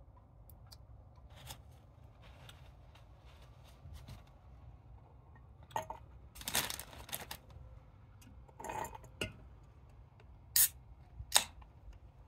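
Crackles, rustles and sharp clicks from a KFC meal being handled and eaten. The longest crackle comes about six and a half seconds in, and two sharp clicks come near the end.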